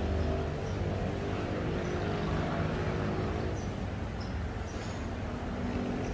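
Steady road traffic noise, with vehicle engines running.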